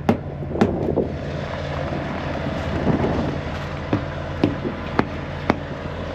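Semi truck's diesel engine idling steadily, with a handful of short, sharp knocks and taps over it.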